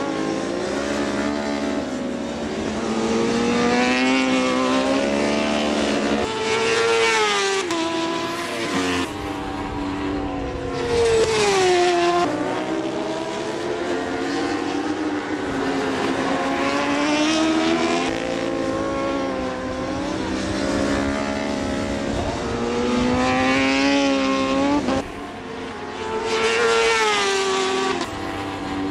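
Racing motorcycle engines at high revs, the pitch climbing through the gears and dropping back at each shift, over and over.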